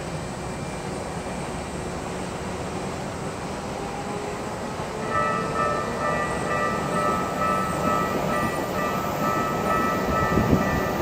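Japanese level-crossing warning bell starting about halfway through, a repeating electronic ringing over steady street noise: the crossing is signalling that a train is approaching.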